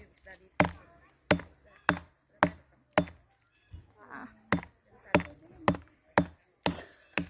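Steady series of sharp chopping strikes into a wooden stick, about one every half second to two-thirds of a second, a dozen in all, with a short pause about halfway through.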